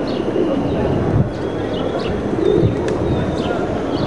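Feral pigeons cooing over steady street background noise.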